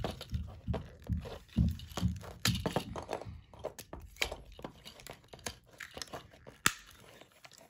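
Hard plastic parts of a Transformers Siege Ultra Magnus figure clicking and snapping as its joints and tabs are moved by hand. There are a few dull thumps in the first couple of seconds.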